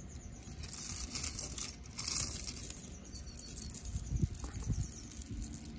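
Rustling and light handling noise as beaded necklaces are picked up and moved about on a cloth, with a couple of soft thumps about four seconds in.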